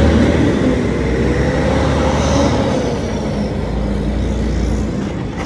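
City street traffic: a loud, low rumble of engines, with one vehicle's engine note rising and then falling as it passes.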